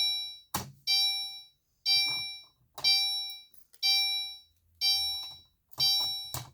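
Gentex Commander 3 fire alarm horn sounding in short, evenly repeated blasts about once a second, set off from a pull station. Sharp clicks come near the start and again near the end.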